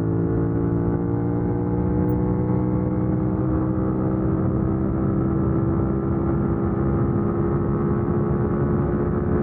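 Suzuki SV650X's 645 cc V-twin engine running under steady throttle on the highway, its pitch rising slowly as the bike gains speed.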